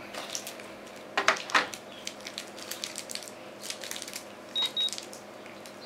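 Plastic clicks and knocks as the AL-9000L electrochemical breathalyzer is handled and set down in its hard plastic case, then two short high beeps from the breathalyzer about three-quarters of the way in, as it warms up for a measurement.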